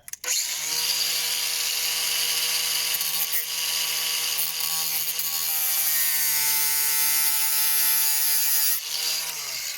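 Angle grinder running at full speed and cutting a slot into a rounded-off screw head so it can be turned with a flat-head bit, a steady whine over a hiss of cutting. Near the end the trigger is released and the whine falls as the disc spins down.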